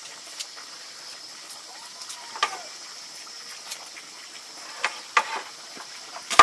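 Light scattered clicks and knocks, coming more often in the last couple of seconds, over a steady faint high hiss.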